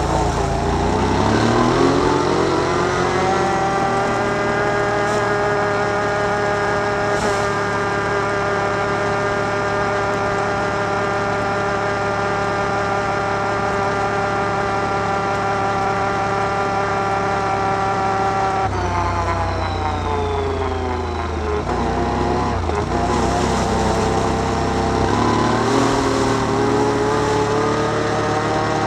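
Can-Am Outlander 1000 ATV's V-twin engine under way: it accelerates over the first few seconds, holds a steady high pitch, eases off about two-thirds of the way through, then accelerates again.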